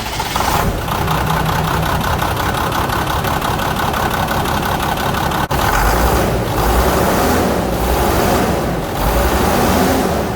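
International DT466 inline-six diesel engine running just after being started, with a couple of deeper, louder swells in its note in the middle and near the end.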